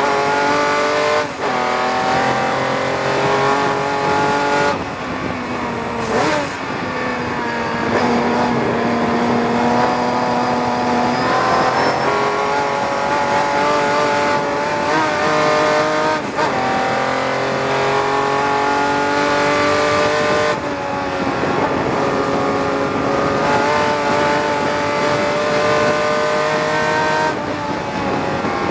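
Tojeiro-Jaguar sports racer's Jaguar XK straight-six engine at racing speed, heard onboard from the open cockpit: its pitch climbs in each gear and breaks briefly about five times for gear changes and lifts. Wind rushes past the cockpit as a steady hiss underneath.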